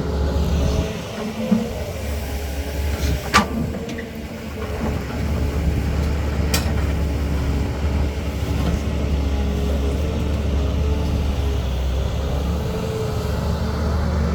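Diesel engine of a CAT 320 hydraulic excavator running steadily on a construction site. Two sharp knocks cut through, about three and a half and six and a half seconds in.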